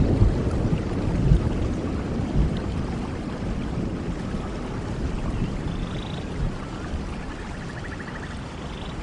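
Steady rain with a low rumble of thunder that fades away over several seconds. A couple of faint short chirps come through near the end.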